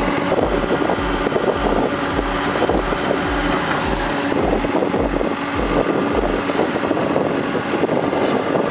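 A heavy machine's diesel engine running steadily, with a regular low beat about twice a second underneath.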